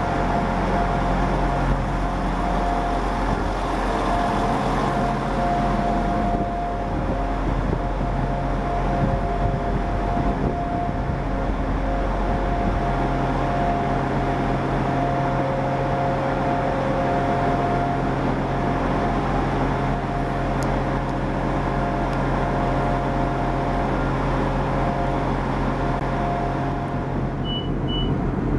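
Class 175 diesel multiple unit standing with its Cummins diesel engines idling: a steady low engine note with a constant whine over it. Two short high beeps near the end.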